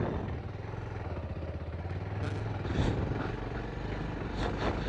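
Motorcycle engine running at low speed with a steady low drone, the bike rolling along a rough dirt track.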